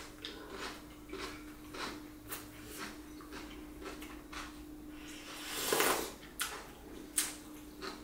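Close-miked eating sounds: soft wet clicks of chewing and fingers mixing rice, with a longer, louder slurp of soup from a bowl a little before six seconds in. A faint steady hum lies underneath.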